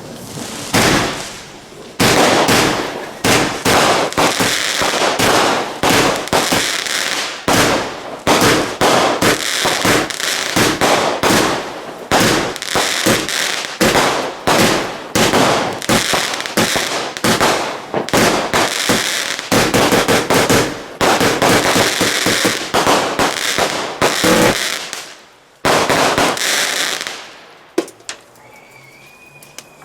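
Bad Boy 'Rascal' firework cake firing: a dense run of rapid shots and crackling bursts that goes on for over twenty seconds, with one last burst before it stops. A bird calls faintly near the end.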